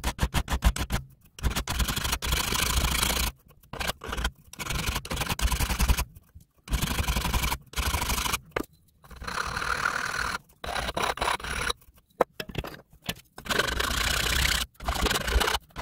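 Hand file rasping across the laser-cut edge of a 3/8-inch metal indexing plate held in a vise, deburring it. The filing comes as a fast string of strokes at first, then in runs of a second or two broken by short pauses.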